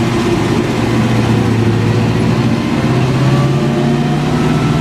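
1963 Chevrolet C30 one-ton truck's engine running on the move, its pitch rising about three seconds in as it picks up speed.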